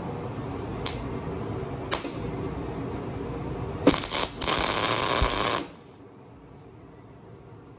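Steady hum with a few sharp clicks, then a welding arc crackling for about two seconds before it cuts off suddenly; a quieter hum follows.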